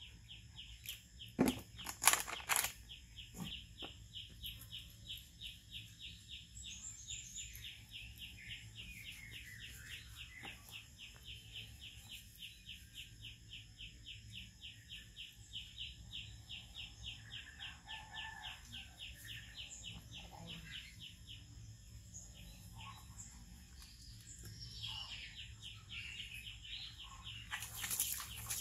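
Outdoor ambience: a steady, rapid run of high chirps, several a second, with other bird calls now and then. Near the end, water splashes as it is poured.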